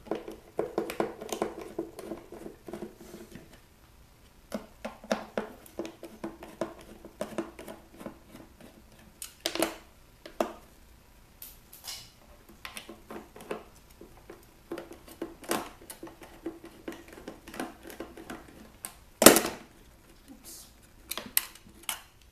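Screwdriver working out the screws that hold a speaker driver in a wooden cabinet: irregular clicks, scrapes and light metal clinks, with one sharp knock about nineteen seconds in.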